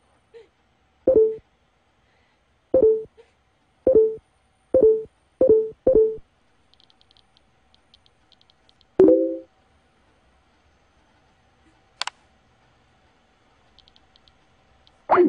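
Computer notification pops from Facebook, six short pitched blips coming faster and faster as new comments arrive, then faint rapid ticking and a lower, fuller chime. A single sharp click follows, and a loud rising swoop sounds near the end.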